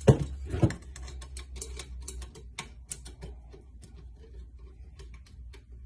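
Light metallic clicks and taps from the spokes and nipples of a bicycle wheel being worked around by hand, with two louder knocks in the first second and then a run of irregular small clicks that thins out.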